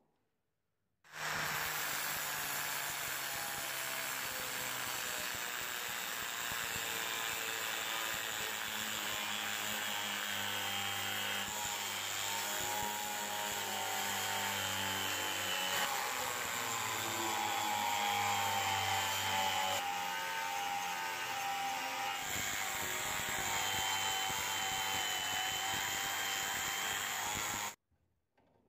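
Angle grinder running with its disc grinding across the perforated metal lid of an antique bed warmer, throwing sparks: a loud, steady grinding with a high whine. It starts about a second in and cuts off suddenly near the end.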